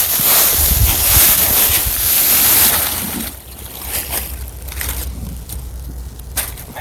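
Wind blowing over the microphone: a loud rushing hiss with a low rumble, easing off about three seconds in, followed by a few brief rustles.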